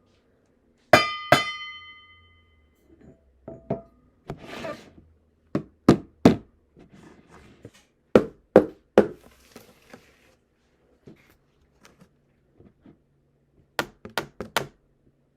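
A plastic spoon tapping on a row of household objects as makeshift drums: two strikes on a small metal pot about a second in, each ringing with a bright tone, then groups of two or three duller, shorter taps on containers and a box.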